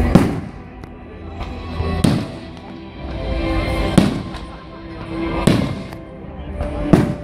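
Aerial fireworks shells bursting overhead: five sharp bangs, one about every one and a half to two seconds, with music playing underneath.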